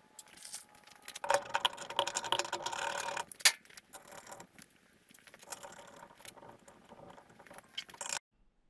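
Small metal hardware clinking and rattling as it is handled and fitted, with a dense ringing jangle in the first few seconds and a sharp metal click about three and a half seconds in, then lighter scattered clicks that cut off suddenly near the end.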